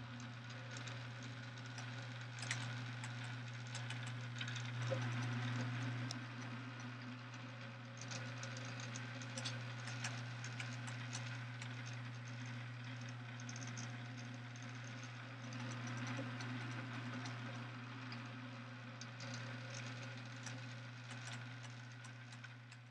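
Small electric motor and linkage of a mechanical diorama running, a steady hum with irregular clicks and rattles from the moving parts. It fades near the end.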